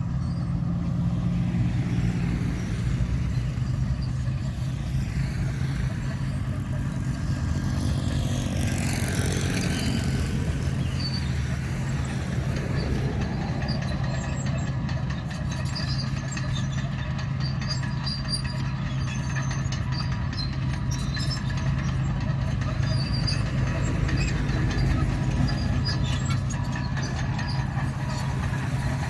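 Komatsu D61 crawler bulldozer at work breaking up a sealed road surface: a steady diesel engine drone with scattered metallic clanking from the tracks and blade. A brief louder rush comes about nine seconds in.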